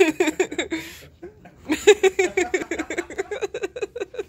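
A person laughing hard in rapid, high-pitched bursts. The laughter breaks off for under a second, about a second in, then resumes.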